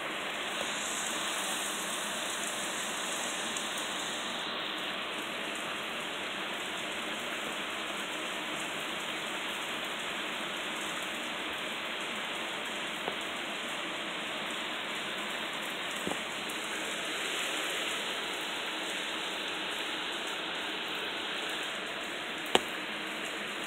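Steady rain falling, an even hiss of many drops hitting surfaces. A single sharp click stands out about a second before the end, with a couple of fainter ticks earlier.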